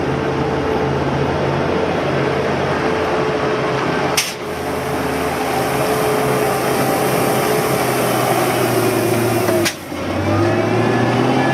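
Heavy road-construction machinery with its engine running steadily. The sound breaks off abruptly about four seconds in and again near ten seconds in, and the engine's pitch is a little different after each break.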